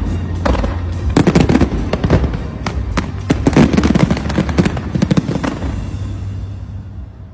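Fireworks bursting in rapid volleys: many sharp bangs and crackles close together, thinning out and fading away near the end.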